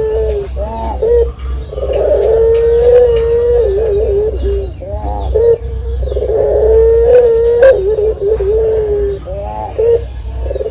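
Caged barbary dove (puter) cooing in the long, high 'ngelik' style. It gives two long held coos of about two seconds each, with shorter wavering coos between them.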